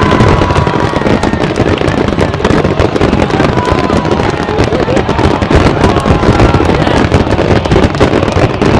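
Fireworks finale barrage: shell bursts and crackling follow one another so closely that they merge into one continuous loud rumble.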